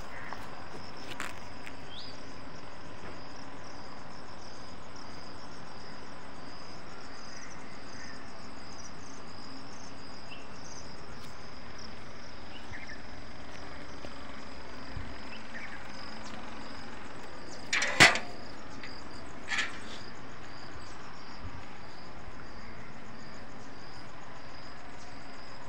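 A steady high-pitched insect trill, a continuous chirring, with two brief sharp clicks about two-thirds of the way through.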